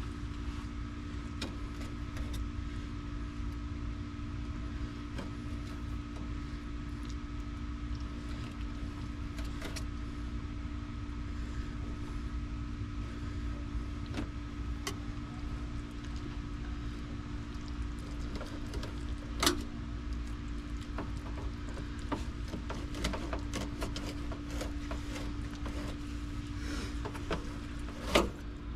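Fillet knife working a catfish fillet on a wet stainless-steel cleaning table: scattered light clicks and taps, with two sharper knocks, one about two-thirds through and one near the end. A steady machine hum and low rumble continue underneath.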